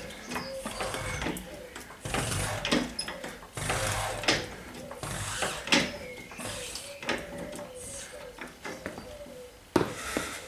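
Car jack being worked to lift the car: a run of irregular metallic scrapes and clicks.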